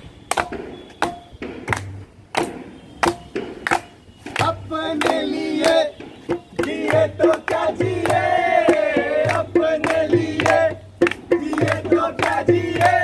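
A group of performers clapping their hands in a steady beat, about one clap every three-quarters of a second, then singing together over the claps from about four seconds in.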